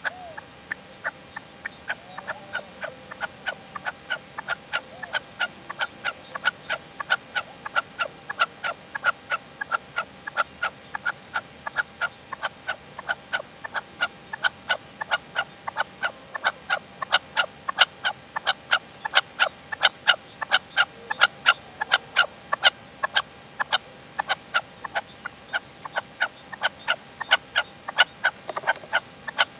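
Red-legged partridge, a caged decoy male, calling a rapid, steady series of short harsh notes, about two to three a second, growing louder about halfway through.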